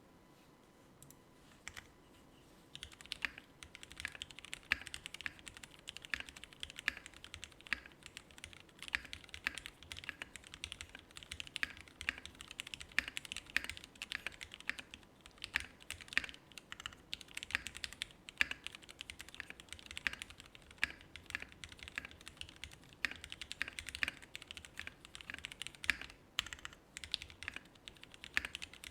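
Typing on an Aksara60 60% mechanical keyboard with broken-in, lubed and filmed Cherry Hyperglide black linear switches on a polypropylene plate, gummy O-ring mount, with PBT keycaps: a fast, continuous run of keystroke clacks. A few stray key presses come first, then steady typing from about three seconds in.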